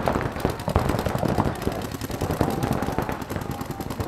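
Several paintball markers firing rapid strings of shots at once, a dense, continuous clatter of pops.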